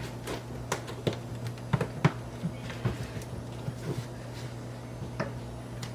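Plastic lid being forced down onto an overfull Tupperware Fridge Stackables container: irregular light plastic clicks and knocks, about one or two a second.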